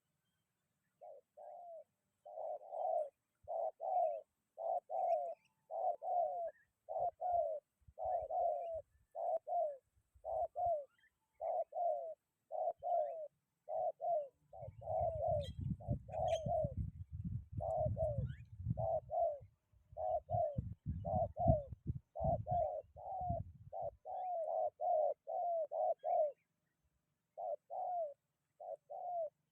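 Spotted dove (tekukur) cooing over and over in short notes, mostly in pairs, with a brief pause near the end. About halfway through, gusts of wind rumble on the microphone for several seconds.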